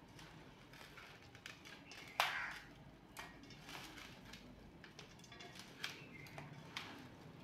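Hands mixing spice-coated fish pieces in a steel plate: scattered light clicks and scrapes, with one sharp clink against the plate about two seconds in.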